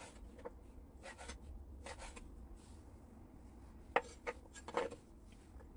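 Kitchen knife cutting preserved radish into thin shreds on a wooden cutting board: a few soft cuts spaced about a second apart, then three louder knocks and rubs about four seconds in.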